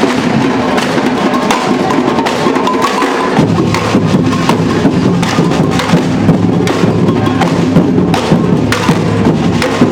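A street drum band playing a dense, fast rhythm of sharp stick strokes. The deep bass drums join in about three seconds in.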